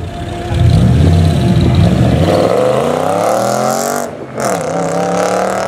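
Audi S5 coupe accelerating hard away with a loud exhaust. The engine note climbs steadily, breaks for a gear change about four seconds in, then climbs again. The exhaust is one its owner suspects of leaking.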